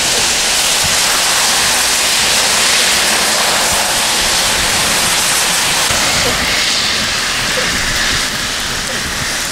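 Heavy rain pouring down on a wet road, a loud steady hiss.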